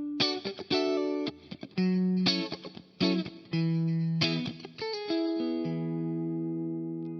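Vintage V6H Icon HSS electric guitar played through a Kemper amp profiler, solo with no backing track: a phrase of separately picked notes and chords, ending on a long held chord that slowly fades.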